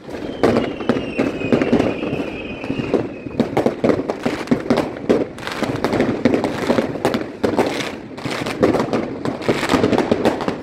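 Many consumer fireworks going off on all sides: a dense, irregular barrage of bangs and crackles from rockets and firecrackers. A firework whistle falls slowly in pitch during the first three seconds.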